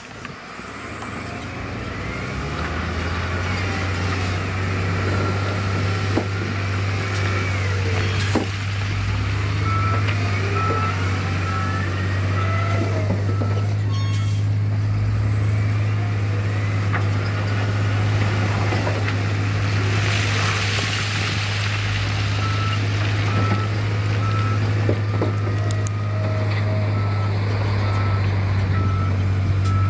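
Heavy earthmoving machine's diesel engine running with a deep steady drone, its reversing alarm beeping at an even pace in several spells. A hiss comes up briefly about two-thirds of the way through.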